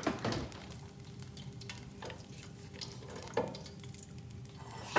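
Beer-battered shrimp sizzling in the hot oil of a deep fryer, a steady frying hiss. A few light knocks and clicks of utensils come at the start and again after about two seconds and three and a half seconds.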